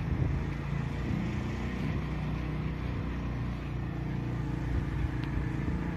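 Small motorcycle engine running steadily while riding along, with road and wind noise.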